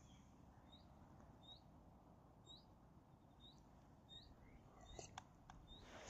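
Faint bird calls: a short, high, upward-flicking chirp repeated about once a second, with a couple of soft clicks near the end.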